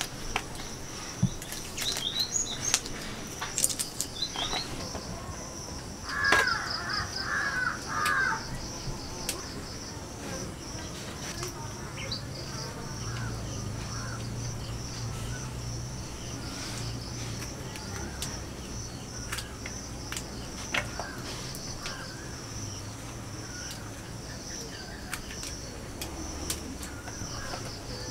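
Soft clicks and snaps of wild mushrooms being peeled and broken apart by hand, over a steady high-pitched insect drone. About six seconds in, a bird calls several times in quick succession.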